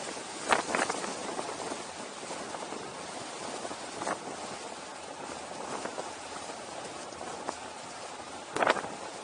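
Steady rushing wind noise on the camera's microphone while moving downhill, with a few short sharp knocks: a pair about half a second in, one around four seconds, and the loudest near the end.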